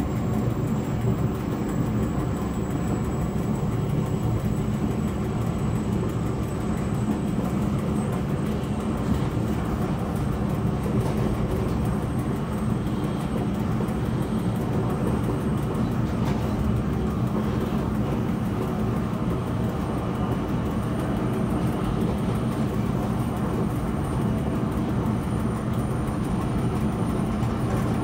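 Steady running noise of an SBB Re 420 electric locomotive, heard from its cab: an even low rumble of wheels on rail and running gear, with no sudden events.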